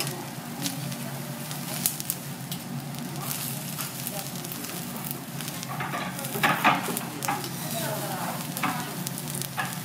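Green bell pepper sizzling on a hot steel teppanyaki griddle, with the knife clicking and scraping on the steel plate as it cuts and pushes the strips. The clicks bunch up and are loudest about six to seven seconds in.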